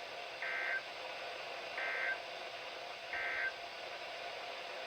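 Three short bursts of EAS SAME digital data tones, evenly spaced about a second and a half apart: the end-of-message code that closes an emergency alert broadcast. Steady radio hiss runs under them.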